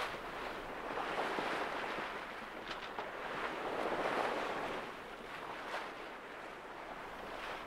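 Water rushing along a sailing yacht's hull, with wind, rising in surges about a second in and again around four seconds, then easing after about five seconds.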